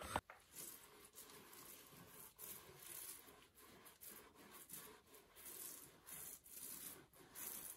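Paint roller working wet emulsion paint onto a wall: faint, repeated sticky swishing strokes.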